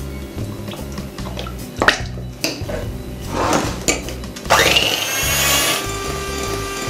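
Electric hand mixer switched on about four and a half seconds in, its motor whining up in pitch and then running steadily, after some handling clatter. Background music plays throughout.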